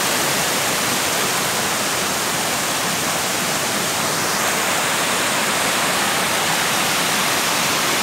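Shallow stream rushing over rock slabs and small cascades below a waterfall: a steady, even rush of water.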